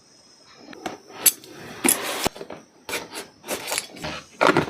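Hands handling and opening a microphone's cardboard retail box: a string of short scrapes, taps and rustles, the loudest near the end.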